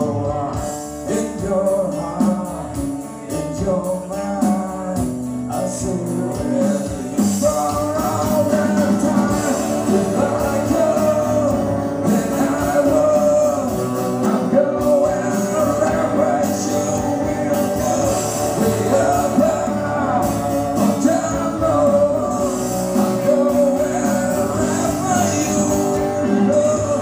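A man singing live with acoustic and electric guitar accompaniment.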